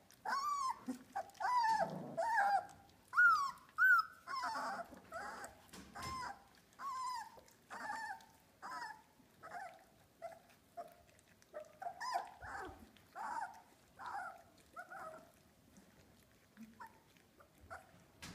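Three-week-old Australian Labradoodle puppies whining in short, high, rising-and-falling squeals, about one a second, loudest a few seconds in and thinning out near the end.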